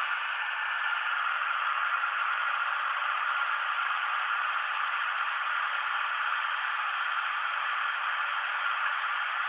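Homemade CNC machine's spindle running steadily as it cuts an outline into black plastic, an even whirring hiss with no change in pitch.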